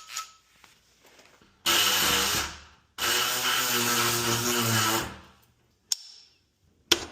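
Handheld power tool motor run in two bursts, a short one and then one of about two seconds, followed by a click and a sharp knock near the end.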